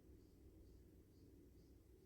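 Near silence: a faint low hum, with faint, high, evenly spaced ticks about twice a second.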